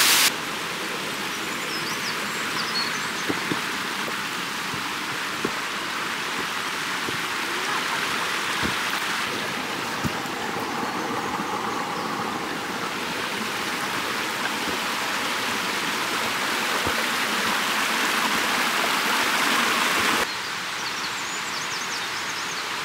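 A mountain stream rushing steadily, with a few light knocks and faint bird chirps near the start and end; the rushing drops in level suddenly about twenty seconds in.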